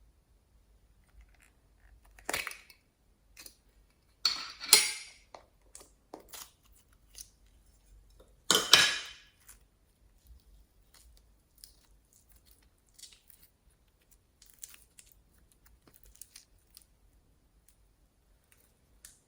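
Slime being squeezed and pressed by hand: three louder squishes about two, four and a half and nine seconds in, with faint clicks in between.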